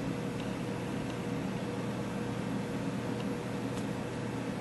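Steady background hum and hiss with a thin steady tone above it, and a few faint clicks.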